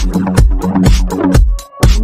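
Electronic dance music with a steady beat, about two beats a second. The music drops out briefly near the end, then the beat comes back in.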